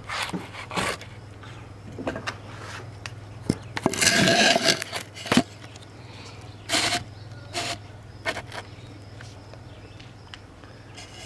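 Camera being handled and set down: a string of knocks, bumps and rustles, the loudest a scuffing rustle about four seconds in, over a steady low hum.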